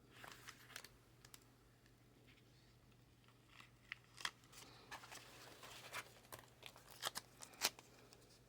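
Stickers being peeled off their backing paper and handled: faint crinkling and rustling of paper with scattered small clicks, the loudest near the end.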